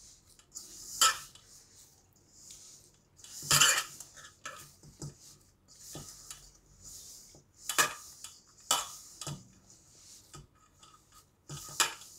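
Hand mixing and kneading crumbly ground Oreo biscuit and milk dough in a stainless steel bowl: soft rubbing and crumbling of the mixture, with irregular sharp clinks against the steel bowl every second or two.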